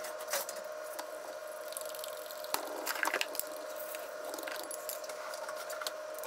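Chopsticks whisking a wet batter of flour, water and egg in a bowl. Soft wet squishing with scattered light clicks, over a faint steady hum.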